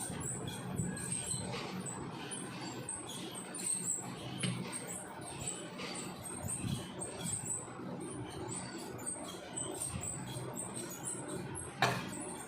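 Rapid high-pitched chirps repeating over and over, with a short sharp noise near the end.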